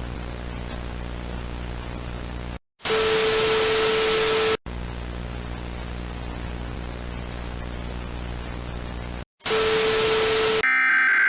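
Low hum and hiss of analog static, twice interrupted by louder bursts of harsh static carrying a steady mid-pitched tone. Near the end the screeching data burst of an Emergency Alert System SAME header begins.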